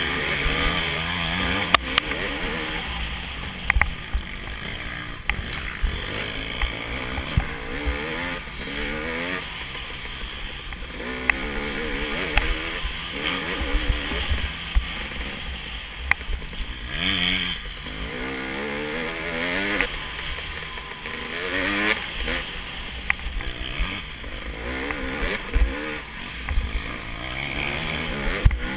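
Dirt bike engine heard from on the bike, its revs rising and falling over and over as the throttle opens and closes along the trail. Low wind rumble on the microphone and scattered sharp knocks from the bike jolting over bumps.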